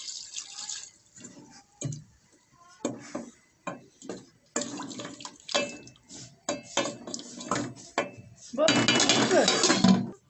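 Water poured into an aluminium cooking pot of curry, then a wooden spoon stirring and knocking against the pot's sides. Near the end a loud, dense scraping and rattling as the aluminium lid is put on the pot.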